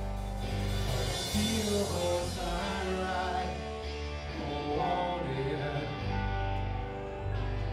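Rock band playing live, with guitar and bass under a singing voice.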